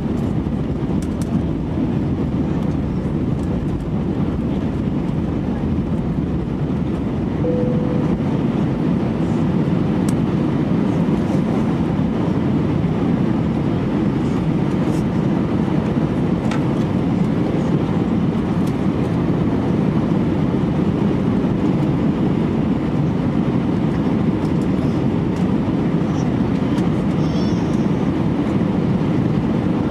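Steady low rumble of an Airbus A319's engines and rushing air, heard inside the cabin, growing slightly louder after about eight seconds.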